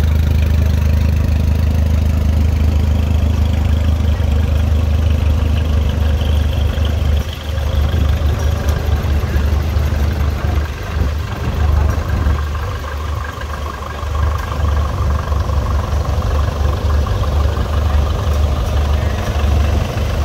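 Antique tractor engine running slowly with a strong, low note. About a third of the way in the note turns choppier and pulses unevenly.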